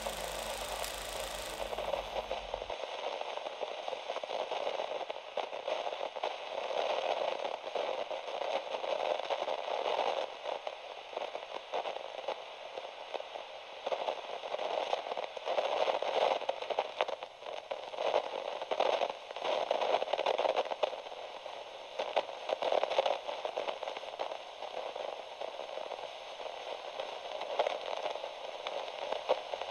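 Crackling static, thin and mid-range, with fine crackles throughout, swelling and fading every few seconds.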